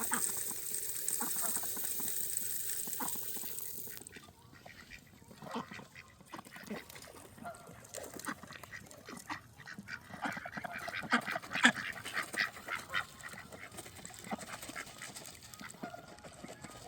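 Ducks calling with short quacks and honks, scattered at first and then a busy run of calls about two-thirds of the way through. A steady hiss fills the first few seconds.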